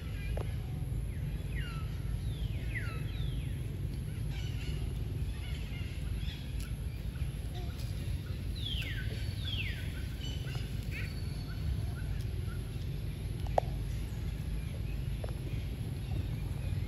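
Outdoor ambience: a steady low rumble with a steady high hiss, and two groups of high animal calls that each sweep quickly downward in pitch. A single sharp click about two-thirds of the way through.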